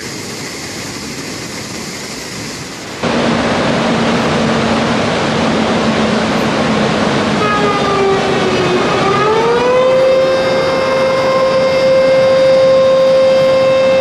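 Water from a dam release rushing and crashing through the spillway and outlet gates, a loud steady rush that jumps up sharply about three seconds in. From about halfway through, a siren tone slides down, then rises and holds one steady pitch.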